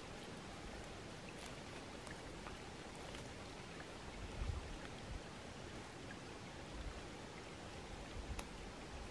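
Small forest stream trickling over stones, a steady soft splashing, with a faint click near the end.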